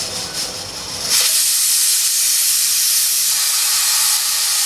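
Stovetop pressure cooker's weighted whistle lifting and venting steam. After a few short sputters, a loud steady hiss starts suddenly about a second in. It is the third whistle, the cue that the rice is done.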